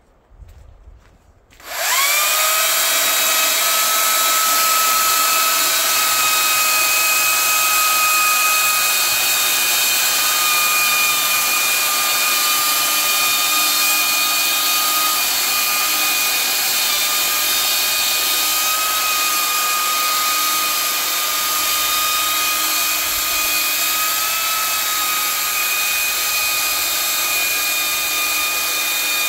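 Makita 40V cordless chainsaw starting about two seconds in. Its motor spins up in a quick rising whine, then runs at full speed as the chain cuts into a larch log, a steady high whine over the hiss of the chain in the wood.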